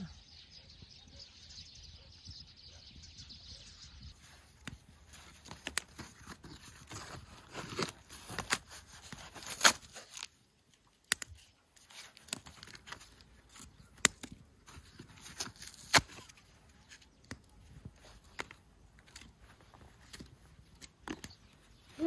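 Wood campfire crackling, with irregular sharp pops, a few of them much louder than the rest.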